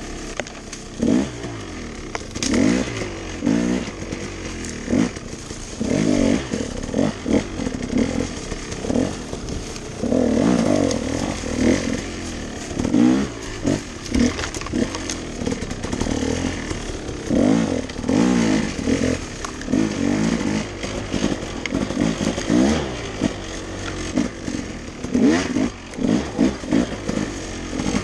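Dirt bike engine revving up and down again and again as the throttle is worked while riding.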